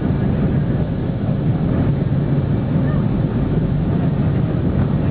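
Boeing 757-200 jet engines and cabin noise heard from a seat over the wing: a steady low rumble with a faint hum as the airliner taxis and turns on the ground.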